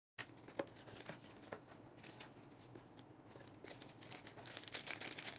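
Faint rustling and crinkling of plastic packaging being handled in a cardboard box, with scattered small clicks and ticks.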